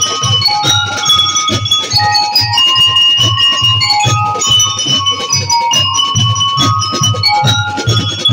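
Drum and lyre band playing: metal lyre bars ringing out a bright melody over a steady beat of bass and snare drums.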